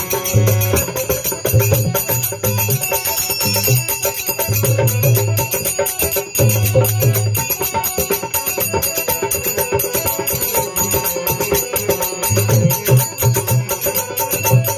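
Instrumental folk-devotional music without singing: a harmonium holds sustained chords, a dholak beats a steady rhythm of low strokes, and small hand cymbals jingle in quick, even time.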